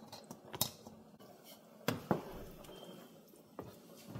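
Metal kitchen tongs clinking against a stainless steel bowl and cooking pot as pieces of goat meat are handled: a handful of sharp, separate clinks, two of them close together about two seconds in.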